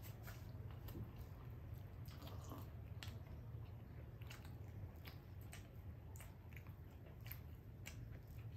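People chewing and biting into pizza slices: scattered soft, wet mouth clicks and squishes over a steady low hum.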